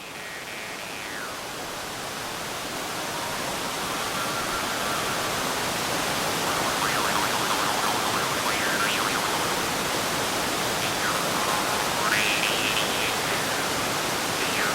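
Roar of a waterfall, growing louder over the first few seconds, with an iron jaw harp twanging faintly underneath, its overtones sweeping up and down and nearly drowned out by the falls.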